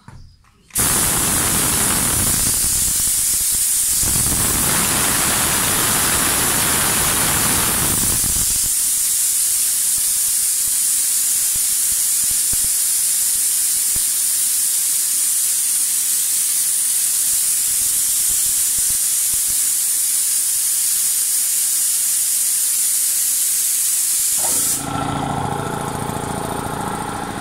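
Schneider air compressor: a loud, steady hiss of compressed air starts abruptly about a second in. Near the end it gives way to the compressor's motor running with a steady hum.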